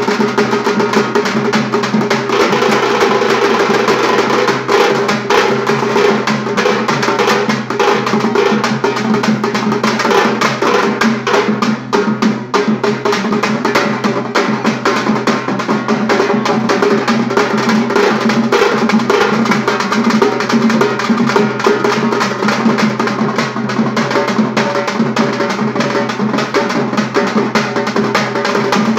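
A street drum band playing a fast, unbroken rhythm on stick-beaten frame drums, a bass drum and small snare-type side drums, with dense drum strokes.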